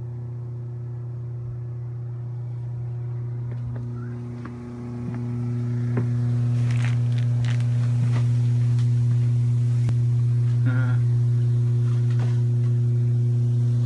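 Steady low electric hum of a hot tub's pump motor, growing louder about five seconds in as it is approached. A few light clicks and knocks sound over it.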